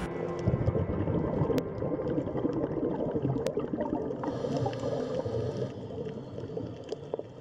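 Underwater ambience on a coral reef: a low, crackling, gurgling water noise with two sharp clicks. A brief hiss comes in about four seconds in and lasts a little over a second.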